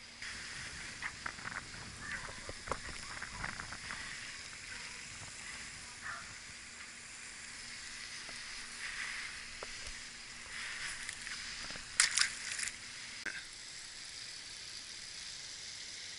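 Scattered clicks and rustles of handling, over a steady high hiss. A sharp cluster of clicks about twelve seconds in is the loudest sound.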